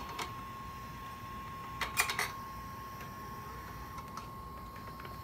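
A few sharp clicks and knocks from hands working the arm of a Finetech Fineplacer Core BGA placement machine, the loudest cluster about two seconds in, over a steady high whine.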